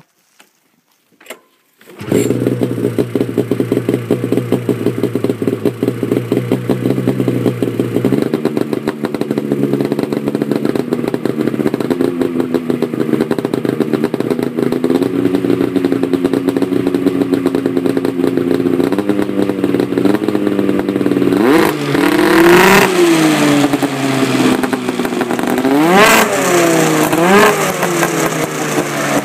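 2004 Arctic Cat Sabercat 700's two-stroke twin, breathing through a Sno Stuff rumble pack aftermarket exhaust, catches about two seconds in and idles steadily. Near the end it is revved in three short blips.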